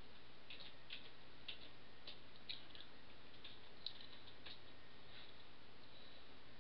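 Light clicks of a computer mouse, about ten of them, roughly every half second, stopping about two-thirds of the way through, over a steady background hiss.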